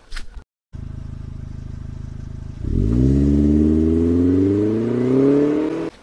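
A motor vehicle engine running steadily, then from about two and a half seconds in revving loudly with its pitch rising steadily, cutting off abruptly near the end.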